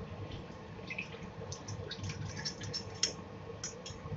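Thin soy and oyster sauce mixture poured into a hot stainless steel wok, starting to bubble. From about a second in it crackles and pops in many small, irregular pops, over a steady low rumble.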